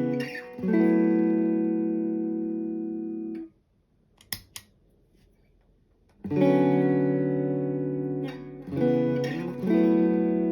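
Electric guitar chords strummed and left to ring, then muted about three and a half seconds in. A couple of small clicks follow in the pause before the chords start again and are restruck twice near the end.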